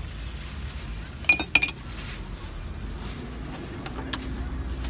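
Metal spreading knife clinking against hard surfaces at a crepe griddle: a quick cluster of four or five sharp, ringing clinks about a second in, then a couple of lighter clicks near the end.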